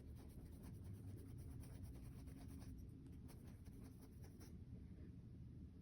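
Faint, irregular scratchy strokes of a paintbrush on a painting surface, over a low steady rumble.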